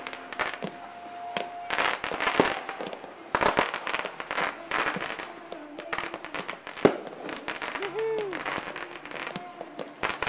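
Fireworks going off in a rapid, irregular series of bangs and crackles.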